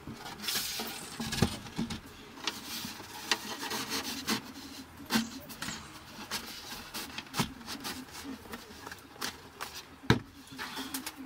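Wooden shower-room wall panel scraping and knocking against the van's interior as it is worked into place. Irregular knocks throughout, the sharpest about ten seconds in.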